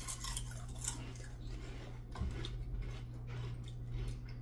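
Three people biting into and chewing potato chips at the same moment: a run of crisp, crackly crunches, thickest in the first second and then scattered as they chew.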